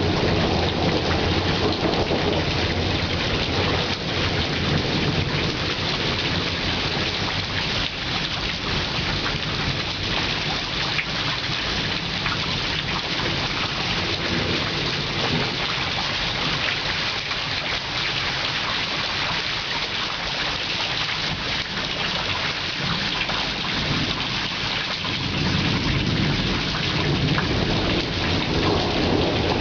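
Heavy rain falling steadily during a thunderstorm, with a low thunder rumble at the start that dies away within a few seconds and builds again near the end.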